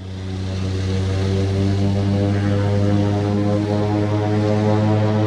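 Floatplane's propeller engine running steadily as the plane moves across the lake on its floats. It is a steady drone that fades up over the first second.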